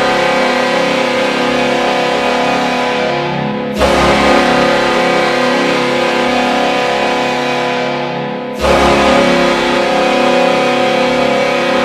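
Hockey arena goal horn sounding in long blasts, a chord of steady tones: the signal that a goal has been scored. A blast runs at the start, and fresh blasts begin about four seconds in and again near nine seconds, each fading slowly.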